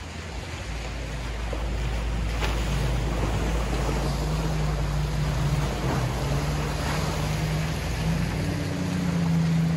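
Toyota pickup truck driving through a large muddy puddle: water sloshing and splashing around its tyres, with a steady engine hum that grows louder near the end.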